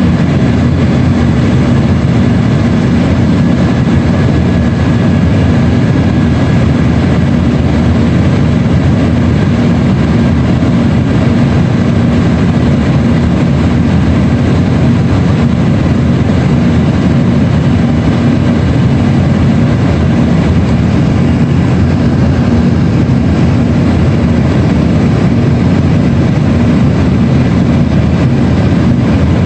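Cabin noise inside an Embraer E135 regional jet climbing out after takeoff: a steady, loud rumble of engines and airflow, with a low steady hum.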